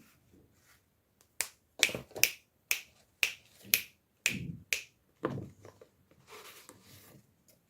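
Toy packaging being handled and opened: about ten sharp plastic clicks and snaps at uneven spacing over a few seconds, then softer rustling near the end.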